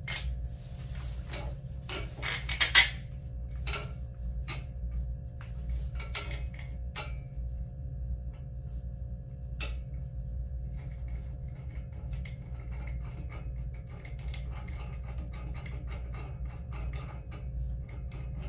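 Furniture parts being handled and fitted together: an irregular run of clicks, knocks and light clatter, the loudest knock about three seconds in, over a steady low hum.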